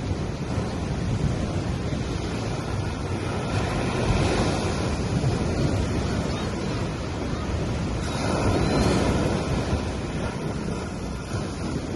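Sea waves breaking and washing up on a sandy beach, swelling louder about a third of the way in and again about two-thirds in, with wind rumbling on the microphone.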